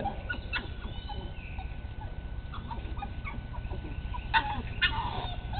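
Six-week-old American Bulldog puppies' play noises as they wrestle: small scattered growls and yips, with a few sharper high yelps about four and a half to five seconds in.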